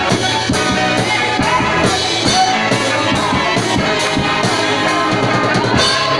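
Amateur rock band playing a song live: electric guitar, bass guitar and a drum kit keeping a steady beat.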